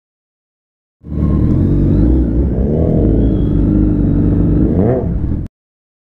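Superbike engine running low in traffic with two throttle blips, the pitch rising and falling about two and a half seconds in and again just before five seconds. The sound starts abruptly about a second in and cuts off abruptly about five and a half seconds in.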